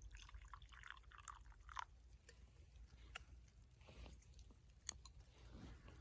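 Faint crackling of a small wood fire: scattered sharp clicks and pops, with a short run of crackles in the first two seconds.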